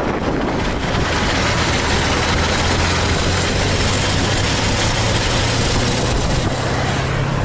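KamAZ dump truck's diesel engine running as the truck rolls along, under steady road and wind noise; the engine note climbs slightly near the end.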